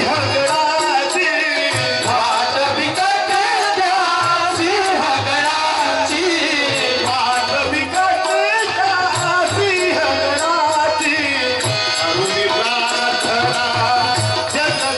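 Men singing a Marathi bhajan to a fast, steady rhythm of tabla and jingling khanjiri frame drums, with a harmonium beneath the voices.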